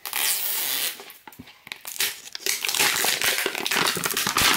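Printed plastic wrapper on a toy potion bottle being torn open and crinkled by hand: a tearing rip in the first second, then crinkling and crackling that grows denser until it stops near the end.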